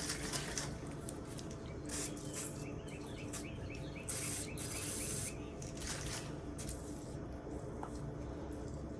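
Aerosol can of oil spraying onto a pocket knife's pin before it is punched out: a few short hisses, the longest lasting about a second midway.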